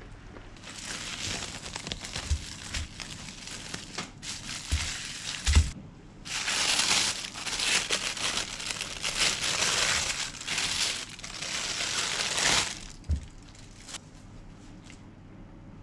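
Thin plastic bag crinkling and rustling as a block of raw pork is unwrapped by gloved hands, loudest in a long stretch through the second half, with a few soft knocks in the first half.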